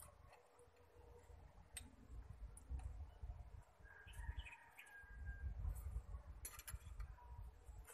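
Light metallic clicks from the gear puller being handled on the crankshaft gear, a few at a time. A chicken calls faintly about four seconds in, over a low rumble.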